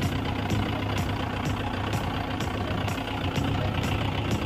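Tractor's diesel engine running steadily as the tractor is driven along, a constant low drone with a faint regular ticking about twice a second.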